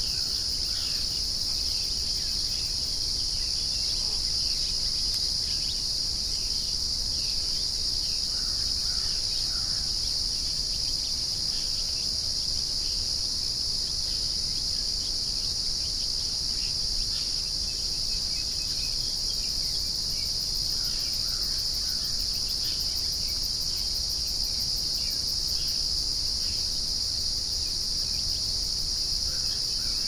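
Steady, high-pitched trilling of a chorus of insects, with faint scattered bird calls.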